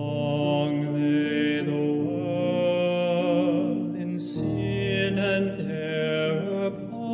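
A solo male voice singing slow sustained phrases with vibrato over held instrumental accompaniment, with a quick breath between phrases a little past halfway.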